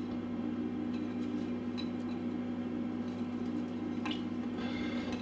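A steady low hum, with a few faint soft ticks as strips of red capsicum are dropped onto chopped vegetables in a glass baking dish.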